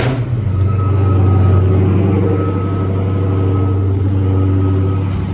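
Dodge Charger SRT 392's 6.4-litre HEMI V8 firing on a cold start: it catches with a sudden loud burst, then settles into a steady idle.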